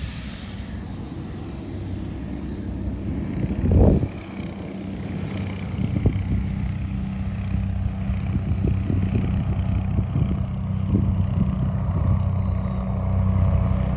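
Single-engine turboprop airplane running steadily as it rolls along the runway, with a low thump about four seconds in.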